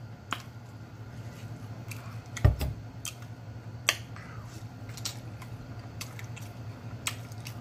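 Close-up eating sounds of a man biting and chewing smoked turkey tail: scattered wet clicks and smacks from the mouth, with a single low thump about two and a half seconds in, over a steady low hum.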